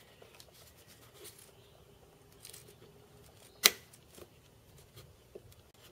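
Light plastic clicks and rustles from hands working the plastic sensor on a Mercedes M276 engine's air intake, with one sharp click a little past halfway, the sensor snapping back into its housing.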